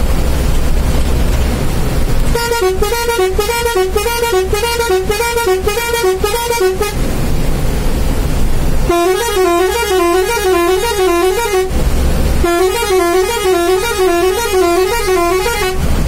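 Bus's multi-tone air horn sounded in three long blasts, each warbling rapidly back and forth between two pitches, over a steady low engine rumble.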